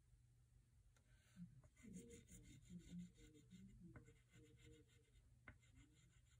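Faint scratching of a black oil pastel drawn in short strokes across paper, with a few soft ticks.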